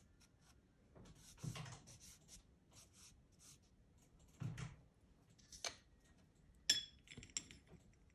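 Soft pastel stick scratching and rubbing across textured pastel paper in short strokes, with two soft thumps. Near the end there is a sharp clink as a pastel stick is set down on the porcelain plate.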